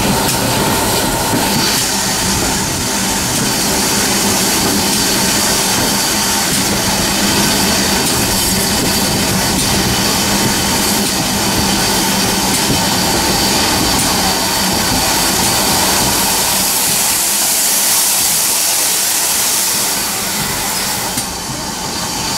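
Steam-hauled train running, heard from an open carriage window behind GWR 4575-class 2-6-2 Prairie tank 5521: a steady rumble of the train on the rails with a strong hiss over it. It eases slightly near the end.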